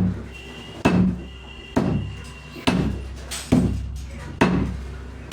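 Six heavy chops, about one a second, as a blade cuts through a whole chicken onto a chopping board while it is jointed into pieces.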